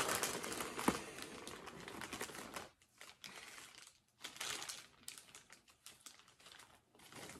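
Clear plastic bag crinkling as leather tack is pulled out of it and handled. It is loudest in the first second or so, then comes in quieter, uneven bursts.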